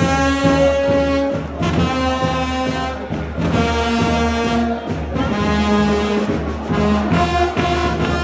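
Brass band playing a slow processional march, with long held notes changing about every second.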